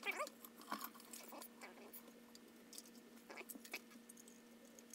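Faint handling noise: light clicks and rustles of a plastic instrument case, circuit board and wires being fitted back together, over a faint steady hum.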